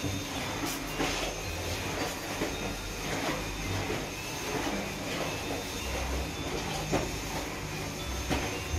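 Cat purring close to the microphone, a low steady rumble.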